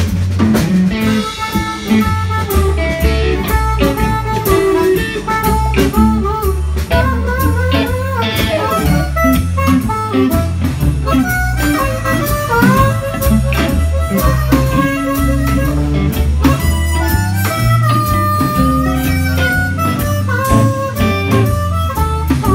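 Band playing blues music with guitar and drum kit over a steady bass line, and a lead line of bending notes.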